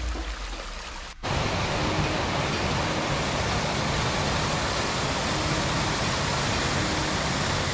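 Waterfall: a loud, steady rush of falling water that comes in suddenly about a second in, after a quieter start.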